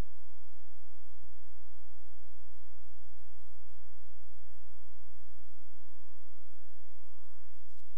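Steady electrical hum, deep and unchanging, with many overtones stacked above it; a faint click near the end.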